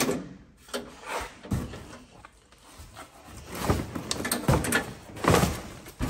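Ford Capri door being unlatched with its release lever and pushed open: a series of clunks and knocks, with some scraping as the door meets cardboard.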